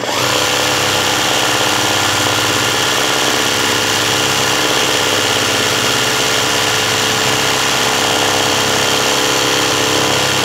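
Sewing machine running steadily at speed through free-motion embroidery: the needle stitches as the hoop is moved under it. The sound starts and stops abruptly.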